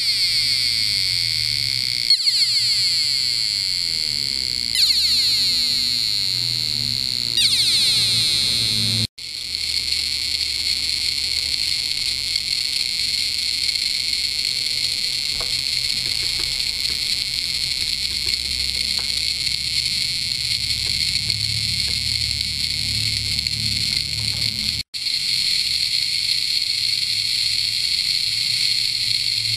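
Piezo speaker on a microcontroller board playing modulated test tones. For about the first nine seconds it gives a string of shrill, fast-repeating sweeping buzzes whose pattern changes every two to three seconds. After that it gives a steady harsh hiss of noise, which cuts out for an instant about 25 seconds in and then resumes.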